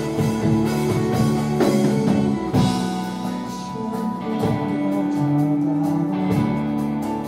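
Live rock band playing an instrumental passage: electric bass, guitar and a drum kit.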